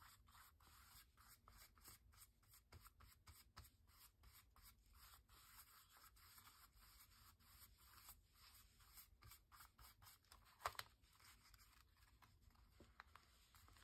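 Faint scratchy strokes of a flat paintbrush brushed over paper, about three a second, with one louder short tap about eleven seconds in.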